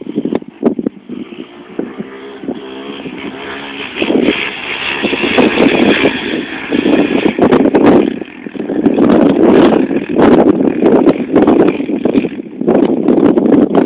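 Quad (ATV) engine revving and accelerating as it is ridden hard over dirt, its high whine rising and falling, under loud rough noise that swells and drops.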